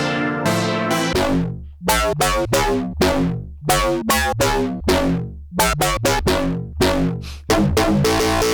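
Arturia MiniFreak synthesizer playing a rhythmic run of short, pitched notes, each with a sharp attack that dies away quickly, about three a second. A sustained chord takes over near the end.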